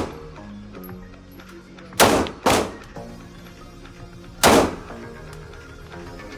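Three gunshots: two in quick succession about two seconds in, then a third about two seconds later, each with a brief ring after it, over background music.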